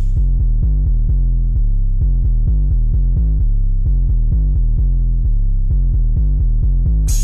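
Background music with a steady, bass-heavy beat; the treble is filtered out, giving a muffled sound, until it opens up again just before the end.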